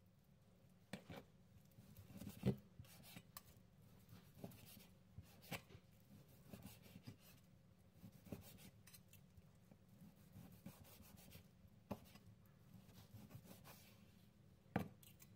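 Chef's knife slicing through grilled beef skirt steak onto a plastic cutting board, with a fork steadying the meat: faint rubbing and scraping strokes with scattered light taps of metal on the board, the sharpest tap near the end.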